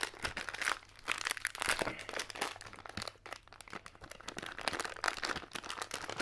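Small plastic candy packet crinkling and crackling in the hands in irregular bursts as it is twisted and pulled at, resisting being torn open.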